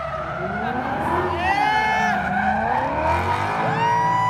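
RTR Mustang drift car drifting: its engine revs in rising and falling sweeps while the tyres squeal as the car slides sideways. Near the end the revs rise and hold high and steady.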